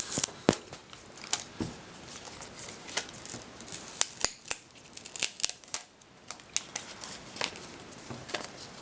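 Plastic wrapping being peeled off a new Apple TV unit, with irregular crinkling and sharp crackles.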